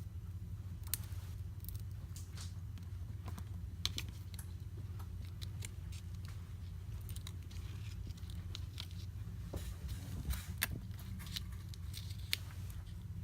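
Scattered sharp clicks and crackles as cracked screen glass and softened adhesive give way under a pry tool working around the edge of an iPad Pro, over a steady low hum.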